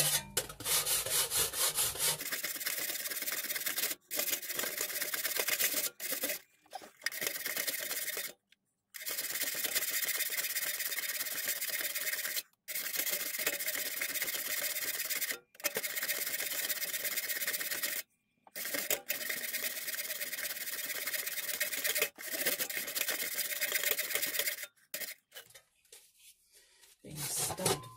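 Surform rasp filing the edge of a 1 mm aluminium sheet in quick repeated strokes, a continuous rasping hiss, to bring the edge square. The hiss is broken off several times by brief dead-silent gaps and dies down for a couple of seconds near the end.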